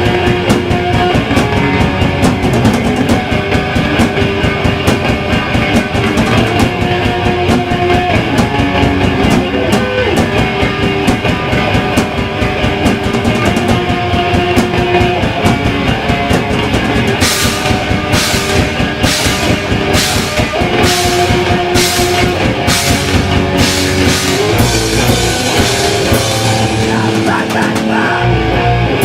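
Hardcore punk band playing loud live: distorted electric guitars, bass and a drum kit. About halfway through, the cymbals crash on a slow even beat, roughly three every two seconds, and near the end the low end drops into heavy, chugging bass hits.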